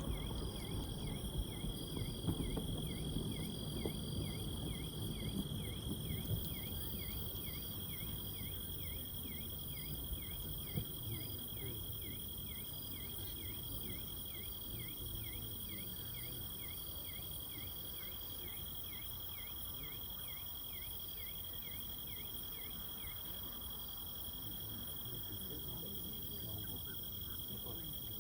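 Summer night insects, crickets or similar, calling steadily: a continuous high trill with a rapid repeating chirp about two times a second that stops near the end. Underneath is a low rumble of background noise, louder in the first few seconds.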